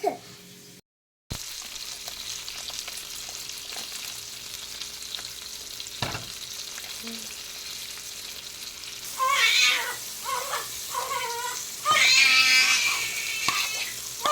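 Chicken sizzling as it fries in a pan, a steady hiss. About nine seconds in, loud high-pitched wailing cries start over it and come again and again.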